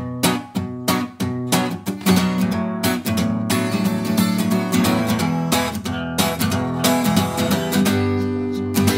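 Background music: an acoustic guitar strumming chords in a steady rhythm, starting suddenly as a new song's instrumental opening.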